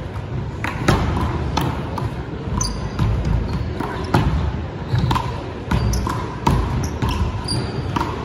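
One-wall handball (wallball) rally: the small rubber ball smacking repeatedly off the front wall, the floor and the players' hands, with short sneaker squeaks on the court floor between the hits.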